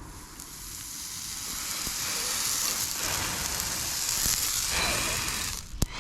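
Hot steel horseshoe sizzling, a steady hiss that builds over about five seconds, then one sharp knock near the end.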